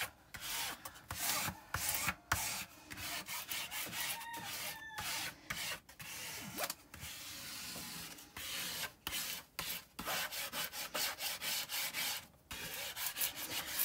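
Protective film on a diamond painting canvas being rubbed flat by hand and with a small tool, pressed back onto the adhesive: a series of dry, scratchy rubbing strokes. The strokes come faster near the end.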